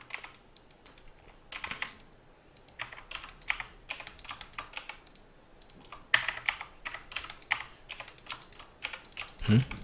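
Computer keyboard being typed on in short runs of quick key clicks, with a pause of about two seconds in the middle.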